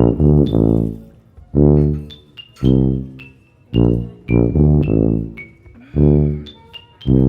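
Background music: deep notes repeating about every half second to a second, with short high notes above them.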